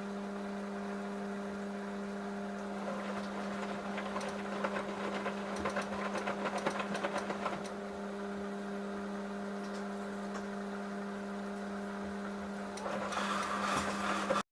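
Samsung Eco Bubble washing machine running a cycle: a steady motor hum, with two stretches of swishing, rattling noise as the drum turns the wash, the first in the middle and the second near the end.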